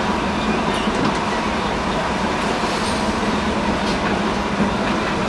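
Tram running steadily along street track, heard from inside the car near the front, with a few faint clicks from the wheels and track.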